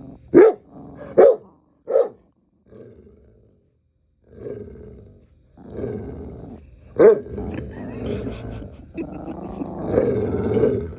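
Dogs play-fighting: three sharp barks in quick succession, then long stretches of deep, rough growling with another bark about seven seconds in.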